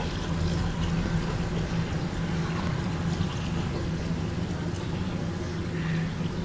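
Steady low background hum with a faint hiss, unchanging throughout.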